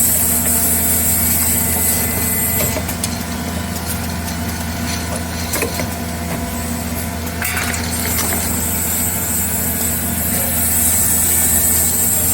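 Knife-handle drilling and serrating machine running: a steady low hum, with a high whine that stops about three seconds in and comes back about eight seconds in. A few light clicks in between.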